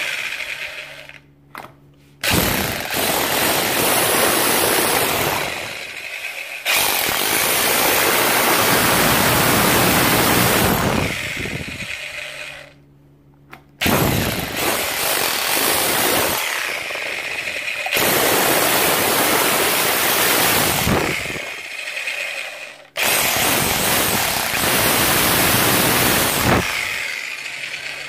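Parkside PBH 1500 F6 hammer drill in chisel-only mode with a flat chisel, hammering into a wall and chipping the surface away. It runs loud in several bursts of a few seconds each, with brief stops between them, starting about two seconds in.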